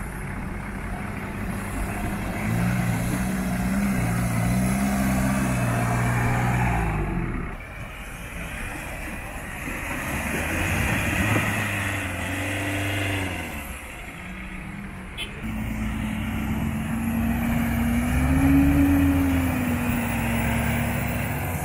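4x4 pickups, a Ford Ranger and then a Mitsubishi L200, driving through a shallow river and up the muddy bank, with water splashing and tyres churning. Their engines rev up and down in several separate passes.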